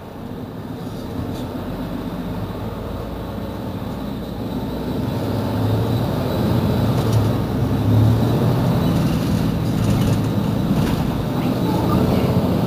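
Mercedes-Benz Citaro C2 city bus engine running with the bus at a standstill. Its low rumble grows steadily louder over the first half or so, then holds with a pulsing hum.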